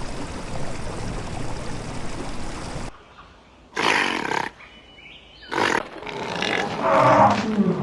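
Big cat roaring and snarling in several separate, abruptly cut bursts: a rough growl for about three seconds, two short snarls, then a longer roar that falls in pitch near the end.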